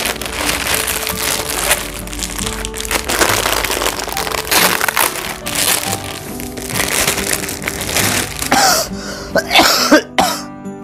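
Background music over packaging being handled and torn open, rustling and crackling irregularly, with a few short sliding sounds near the end.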